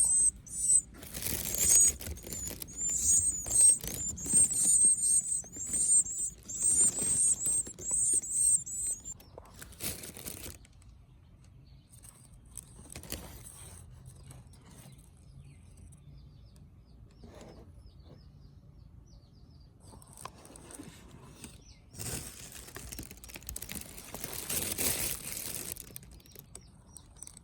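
Baby birds giving rapid, high-pitched chirps over bursts of rustling for the first nine seconds or so. Then it goes quieter, with another stretch of rustling a little over twenty seconds in.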